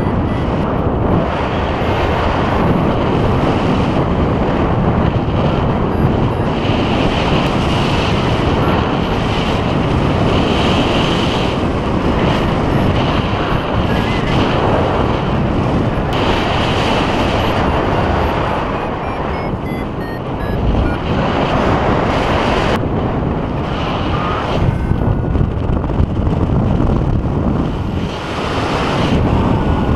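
Wind rushing over the microphone of a camera worn by a paraglider pilot in flight, a steady loud rush that eases briefly twice.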